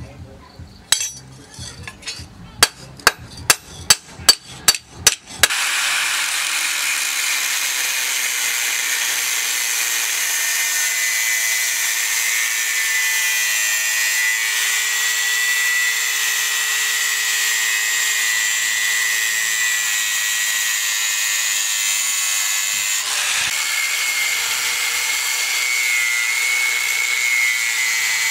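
About nine sharp metal knocks, roughly two a second, then a handheld angle grinder with a thin abrasive cutting disc starts cutting through rusty steel plate, with a steady high grinding whine as it cuts out a knife blank along the scribed outline. The whine dips briefly about three quarters of the way through, then resumes.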